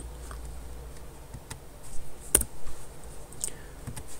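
A few scattered clicks of a computer keyboard and mouse, the sharpest about two and a half seconds in.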